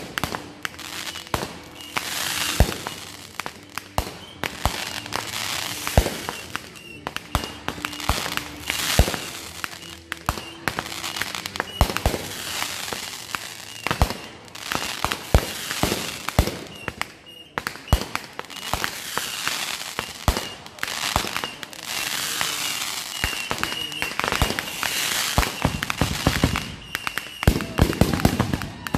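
Consumer aerial fireworks going off: many sharp bangs in quick succession with crackling between them, thickest near the end.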